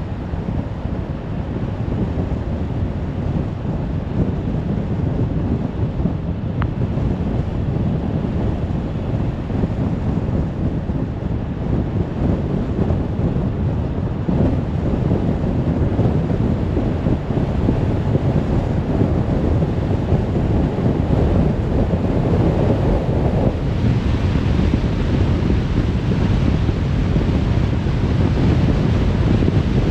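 Car driving on a motorway: steady tyre roar and wind noise, growing a little louder and brighter in the second half.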